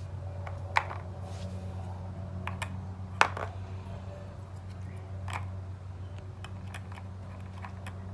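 Checkers pieces tapping and clicking on the board as moves are made: scattered light clicks, with two sharper taps about a second in and about three seconds in, over a steady low hum.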